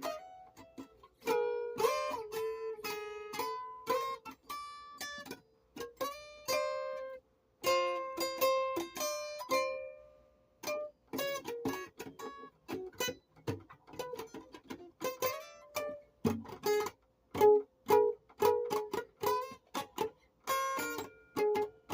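Music played on a plucked string instrument: ringing single notes in slow phrases with short breaks, then quicker picked notes from about halfway through.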